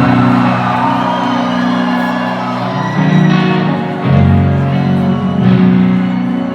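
Live band playing a slow song intro of sustained low chords that change every second or so, with the crowd shouting and whooping over it.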